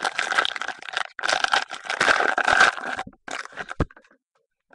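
Trading-card pack wrapper crinkling and rustling as cards are handled, with a short knock shortly before the end, after which it goes quiet.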